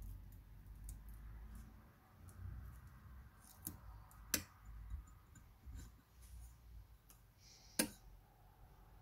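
Faint handling sounds of a paper transfer sheet being taped around a drinking glass: light rustling and scattered small clicks, with two sharper clicks about four and eight seconds in.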